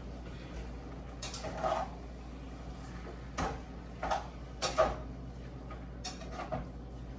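Kitchen handling noises: about eight light knocks and clicks, spaced irregularly, over a low steady hum.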